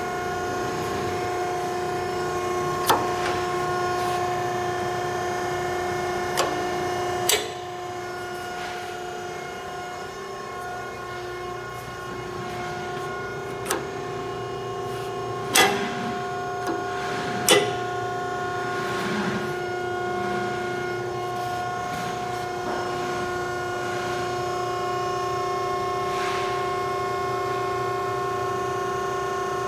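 Steady, multi-pitched hum of a running metal shear's motor, broken by several sharp metallic clunks as the blade-gap adjustment lever is worked. The two loudest clunks come about two seconds apart, a little past the middle.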